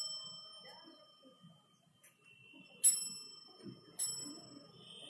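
Three ringing dings of a small bell: one at the start, another about three seconds in, and a third a second later. Each rings on with several high tones and fades, and the second is the loudest.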